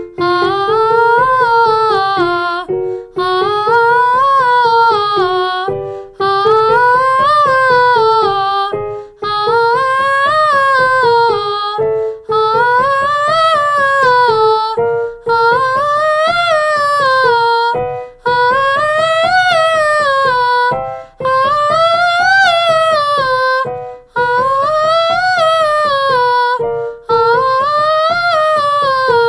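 A woman's voice singing a vocal warm-up exercise without words: a rise-and-fall scale pattern about three seconds long, repeated about ten times, each repetition a step higher in pitch, with short breaths between.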